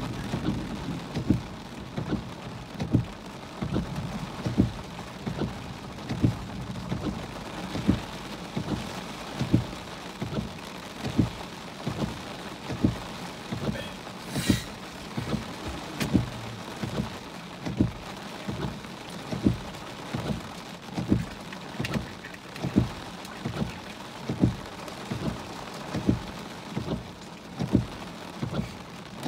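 Heavy rain pelting a car's roof and windshield in a steady hiss, with a regular low thump about once every 0.8 seconds. A brief sharp hiss comes about halfway through.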